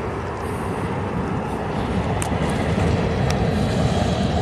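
Wind rushing over the microphone of a bicycle-mounted camera while riding: a steady low rumble that slowly grows louder.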